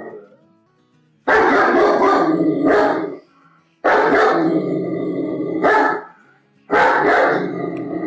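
German Shepherd barking in three loud bouts, each about two seconds long, with short pauses between.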